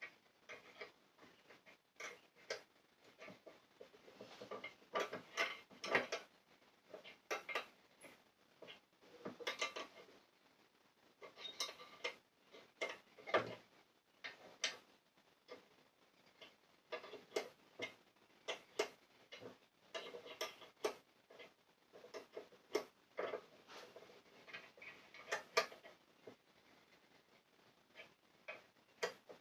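Irregular light clicks, taps and knocks of things being handled, coming every second or so in uneven clusters.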